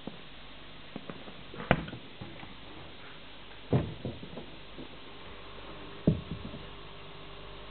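Knocks and clunks of things being handled inside an aquarium stand's cabinet: three loud ones about two seconds apart, with lighter taps between, over a low steady hum.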